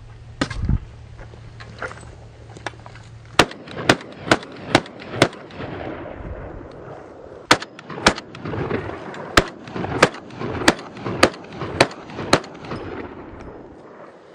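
Semi-automatic pistol shots. Five come in quick succession about half a second apart, then after a short pause about eight more follow at a steady pace.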